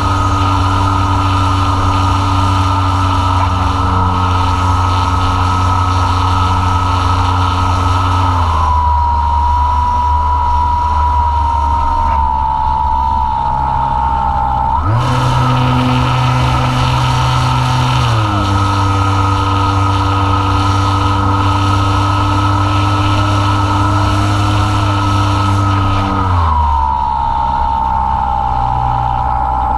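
Apprentice S15e's brushless electric motor and propeller whining from the onboard camera, with wind rushing over the microphone. The whine is steady and drops in pitch as the throttle is cut about 8 seconds in, rises again between about 15 and 18 seconds in, and drops again near the end.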